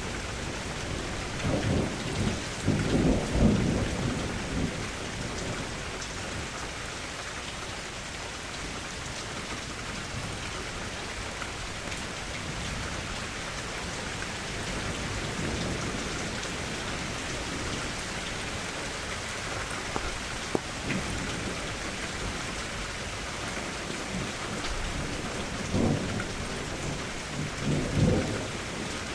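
Thunderstorm: steady rain hissing, with low rolls of thunder. One rumble swells a couple of seconds in, a fainter one comes midway, and another rumbles near the end.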